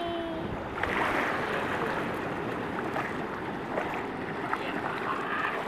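Shallow sea water rushing and washing over sand around wading feet, a steady rush with small splashes.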